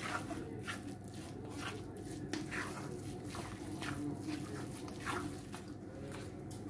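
Wooden spatula stirring and scraping thick sooji upma around a pan in short, irregular strokes, over a low steady hum.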